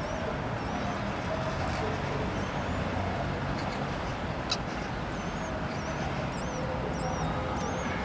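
Common kestrel nestlings giving thin, high, wavering begging squeaks again and again as they are fed, over a steady low rumble. One sharp click about halfway through.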